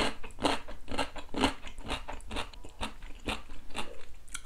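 Crisp crunching of cubed radish kimchi (kkakdugi) chewed close to the microphone, about three crunches a second.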